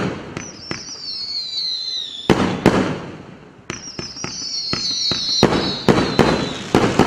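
A 25-shot 35 mm fireworks cake firing whistling comets: long whistles falling in pitch, twice, and about a dozen sharp bangs as the shells launch and burst.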